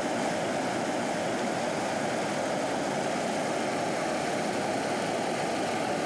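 Flowing stream water rushing steadily.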